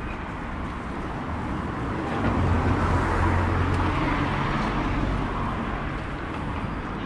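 A car driving past: its engine hum and tyre noise rise to a peak about three seconds in, then fade, over a steady background of traffic noise.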